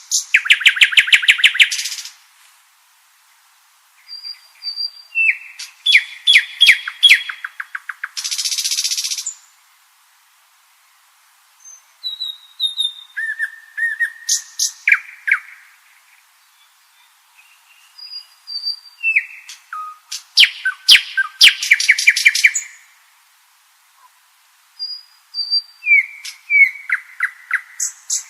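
Common nightingale singing: about five separate song phrases of fast repeated notes and trills, each a few seconds long, with short pauses between them. One phrase ends in a harsh, buzzy rattle about nine seconds in.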